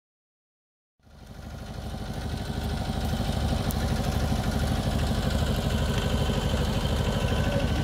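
Small vintage tractor engine running steadily at low speed with an even pulse while it pulls a single-furrow plough. It fades in about a second in.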